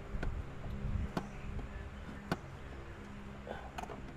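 Sharp clicks and knocks from hands and tools working a stubborn part loose in a car's engine bay, about four in the space of a few seconds, over a steady low hum.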